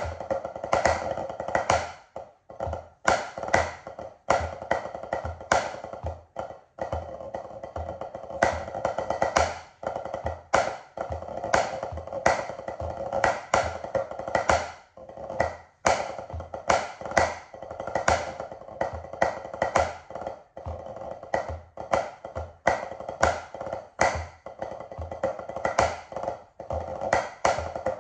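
Wooden drumsticks playing pipe band snare drum scores on a practice pad: quick, dense stick patterns in phrases, with brief breaks between them.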